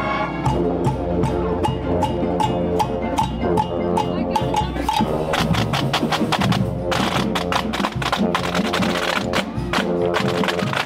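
Marching band playing: sousaphones and brass sounding sustained chords over rapid drumline hits, with the drums coming through more strongly in the second half.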